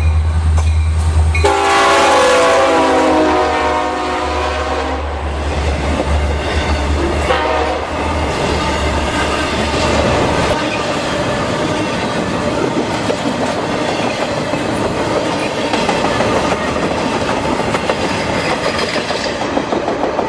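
Two EMD SD60-series diesel-electric locomotives (16-cylinder 710 engines) passing under power with the throttle notched up, their horn sounding one long multi-note blast about a second and a half in over the deep engine rumble. The rumble fades after about ten seconds, leaving the wheels of intermodal flatcars clattering steadily over the rail joints.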